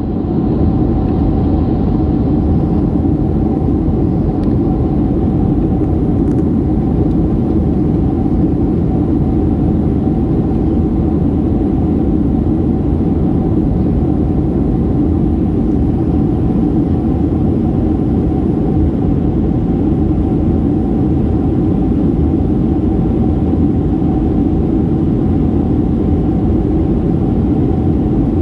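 Steady cabin noise of a Boeing 737-800 in descent: the low rush of airflow and its CFM56-7B engines, with a faint steady hum running through it.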